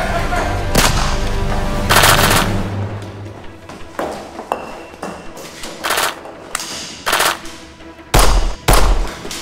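Handgun gunfire in a shootout: a rapid burst of shots about two seconds in, then single shots every second or so, over background music.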